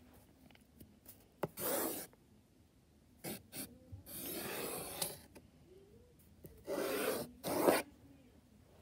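Pencil scratching across paper in about five separate drawn strokes, the longest lasting about a second.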